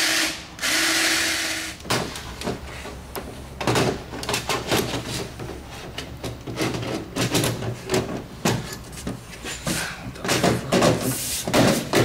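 Cordless drill whirring as it bores a 5/16-inch stud hole through a car hood, with a brief break about half a second in, stopping a little before two seconds in. Then scattered knocks, taps and rubbing as the hood scoop is handled and set down on the hood.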